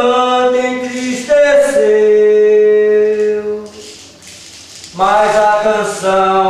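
A man singing a capoeira Angola song in long, drawn-out held notes. After a quieter pause of about a second, the singing starts again near the end.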